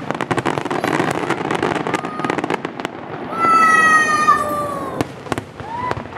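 Aerial fireworks going off: rapid crackling pops for the first three seconds, then a loud whistle sliding slightly down in pitch for about a second, followed by a few single bangs.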